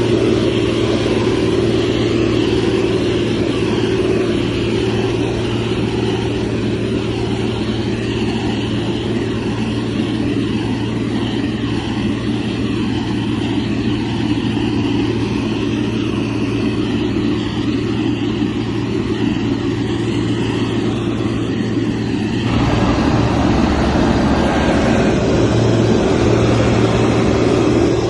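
Heavy diesel engine of a motor grader running steadily under load, with a constant low hum; about 22 seconds in, the engine note changes and grows deeper and fuller.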